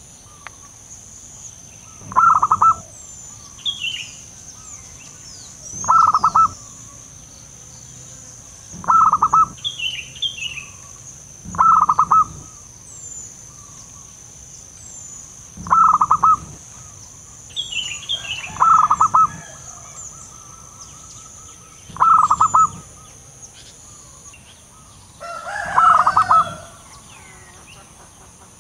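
Zebra dove (perkutut) cooing its short, quick-noted call about every three to four seconds, eight times in all. Faint chirps of other birds sound in between, over a steady high whine.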